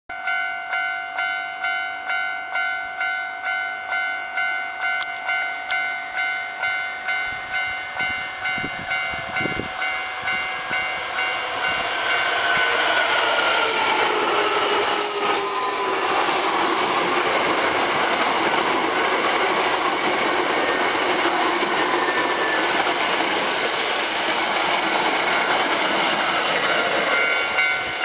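A Japanese level-crossing warning bell rings steadily, an electronic ding about twice a second. About twelve seconds in, an eight-car Hankyu 3300-series resistance-controlled train passes close by, and its running noise and Toyo Denki traction-motor whine, falling in pitch, cover the bell. The bell's dings come back just at the end as the train moves away.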